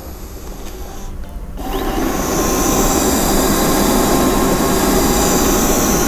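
ABIR X8 robot vacuum cleaner starting up about a second and a half in, then running with a steady motor noise.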